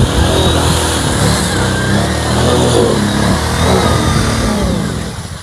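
Arctic Cat 1000 TRV quad's V-twin engine revving hard and unevenly, pitch rising and falling as it churns through deep mud with its wheels spinning. It eases off near the end.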